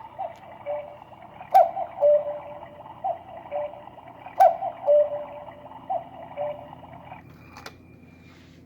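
Battery-operated cuckoo clock sounding its cuckoo call: a two-note high-then-low "cuckoo", the low note held, repeated about every three seconds, each starting with a sharp click, over softer background notes. The calls stop about seven seconds in and a last click follows; the clock is working again after its corroded battery lead was repaired.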